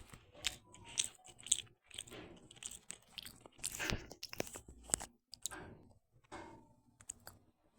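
A person chewing food close to the microphone: irregular wet, crunchy mouth clicks and smacks.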